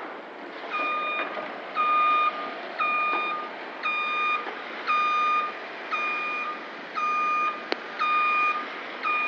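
Reversing alarm of a construction vehicle: a steady, even beep about once a second, each beep about half a second long, over the general hiss of the site. A single sharp click near the end.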